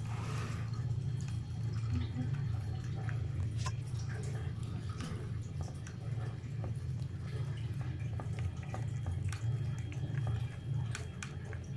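Domestic cat eating wet cat food (tuna in jelly) from a plastic bowl: wet, smacking chewing and lapping with many small clicks, over a steady low rumble.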